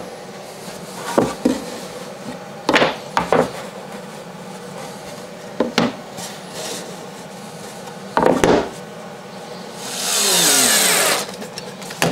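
MDF boards knocking and sliding as they are handled on an MDF CNC waste board, several separate knocks. About ten seconds in, a cordless drill/driver runs for about a second, its pitch falling at the end.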